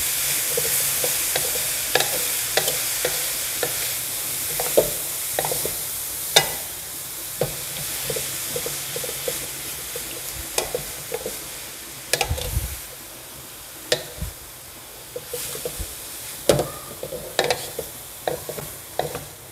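Young papaya and spice paste sizzling in hot oil in a pan while being stirred, with repeated scrapes and knocks of the stirring utensil against the pan. The sizzle is strongest at first and slowly fades.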